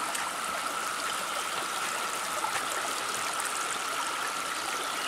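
A small creek flowing, a steady, even rush of running water.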